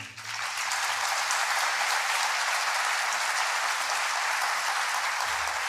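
Concert hall audience applauding at the end of a piece: dense, even clapping that swells in within the first moment and then holds steady.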